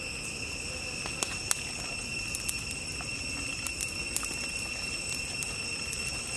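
Steady high-pitched drone of insects, with a few sharp scattered clicks.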